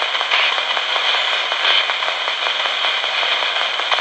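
RadioShack handheld radio sweeping through the AM band as a ghost box, giving steady static hiss and crackle, with brief swells about a third of a second in and again near two seconds.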